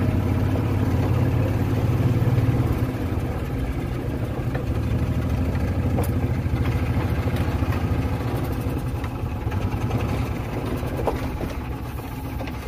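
Golf cart driving across a gravel lot: a steady low rumble that eases off toward the end as the cart slows to a stop.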